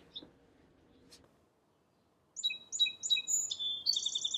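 A songbird singing about halfway in: a few short high notes, then a rapid trill.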